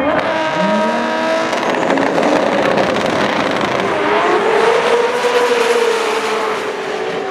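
Two drag-racing cars, one a turbocharged 2JZ-engined car, revving on the starting line and then launching and accelerating hard down the strip.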